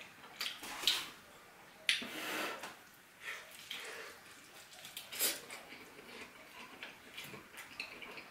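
A person eating close to the microphone: irregular wet chewing, bites and mouth sounds, with a few sharper crunchy onsets.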